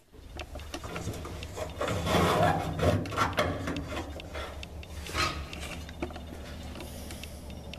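Scraping and rubbing with scattered knocks and clicks as a work light and its cord are dragged around, loudest about two to three seconds in, over a steady low hum.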